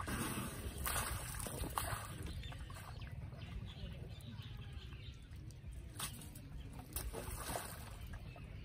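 Muddy water sloshing and splashing as an elephant's trunk stirs and draws at a mud puddle, in a few short splashes spread through the moment.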